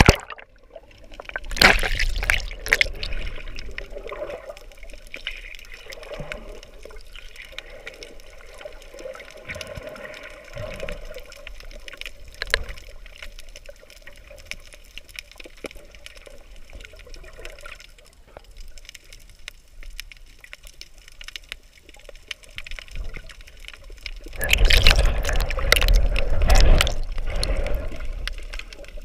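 Water sloshing and churning around a GoPro held by a swimmer underwater, heard muffled through the camera. It is louder about two seconds in and again for a few seconds near the end, with quieter gurgling and small clicks between.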